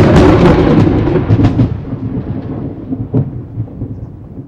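Thunder sound effect: a loud clap that rumbles on and fades away over a few seconds, broken by a few sharp crackles.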